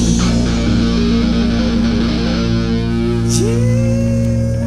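A live rock band playing the closing bars of a song, with electric guitars, bass and drums sustaining loud held notes. About three and a half seconds in, one note slides up and holds.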